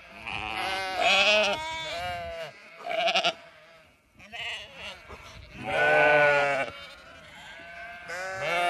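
Zwartbles sheep bleating, a run of separate and overlapping calls with wavering pitch; the longest and loudest bleat comes about six seconds in.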